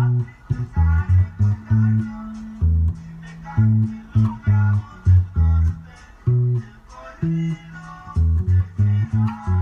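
Electric bass guitar played fingerstyle, picking a bouncing norteño bass line of short plucked notes that alternate between low and higher notes.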